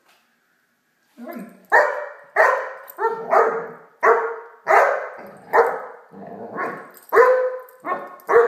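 Great Dane puppy barking in a quick run of about a dozen sharp barks, starting a little over a second in.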